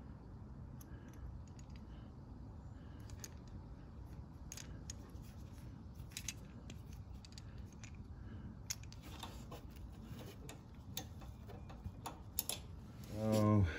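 Faint, scattered small clicks and ticks of metal parts being handled as a new carburetor and its throttle linkage rods are fitted. Near the end a brief low hum of a voice is the loudest sound.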